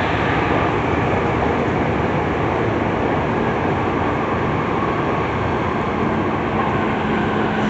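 Running noise of a Tokyu 3000 series electric train fitted with a Hitachi IGBT VVVF inverter, heard from inside the passenger car: a steady, loud rumble of wheels and car body at speed. A faint low hum from the traction motors comes in about three seconds in and again near the end.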